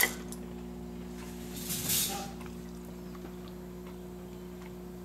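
The changer mechanism of a Wurlitzer 2700 jukebox cuts off at the start, leaving a steady low hum from the running jukebox, with one brief soft swish about two seconds in as the record is set up to play.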